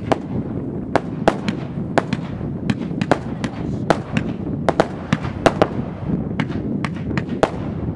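Aerial fireworks firing in rapid succession: an irregular string of sharp bangs and pops, about three a second, over a steady low rumble.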